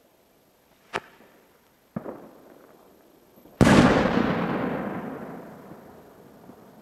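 A small titanium salute rocket (a Zink Kreiselblitz on a rocket motor) bursting in the air with a loud bang about three and a half seconds in, which echoes and dies away over the next few seconds. Two sharp pops come before it, about a second apart.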